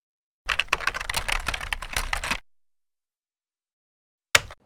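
A rapid, dense clatter of clicks for about two seconds, like fast typing on a keyboard. Then a pause and a single sharp click near the end.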